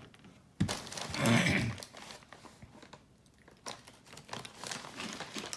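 Crinkling and crunching, starting suddenly a little over half a second in and loudest around a second in, with quieter scattered rustling near the end.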